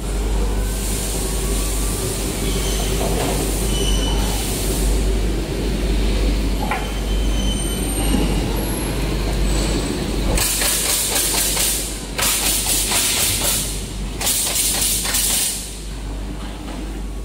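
EVERLIFT CQD15K 1.5-tonne electric reach truck driving on a concrete floor: a steady machine hum and running noise, with a harsher rattling clatter from about ten to fifteen seconds in.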